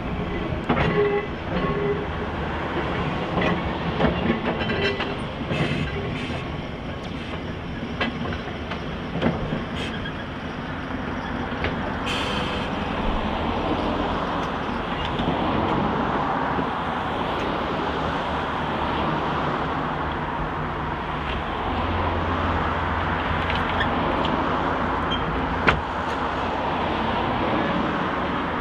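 Manx Electric Railway vestibuled saloon tram No.5, built by G.F. Milnes in 1894, running in on the rails and drawing to a stop. Clicks and knocks from the wheels on the track come through the first ten seconds, over a steady noise, and there is one sharp knock near the end.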